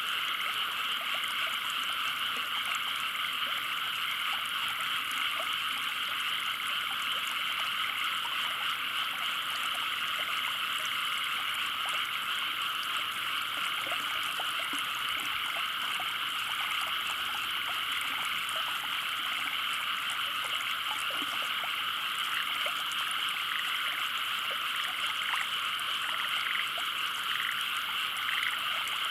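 A chorus of frogs calling together, a dense, steady mass of croaks with no pauses.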